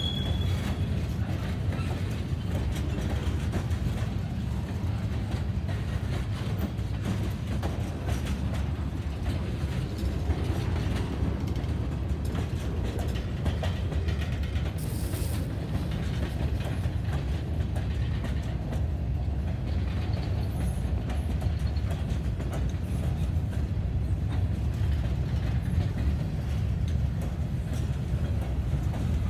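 CSX freight train passing: its cars roll by with a steady low rumble and wheels clicking over the rail joints. A brief high wheel squeal comes right at the start.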